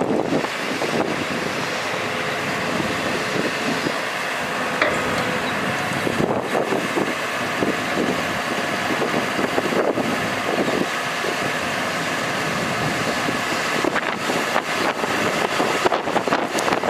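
Cummins 6.7L ISB diesel engine of a bucket truck running steadily with the PTO engaged to drive the boom hydraulics, with wind gusting on the microphone.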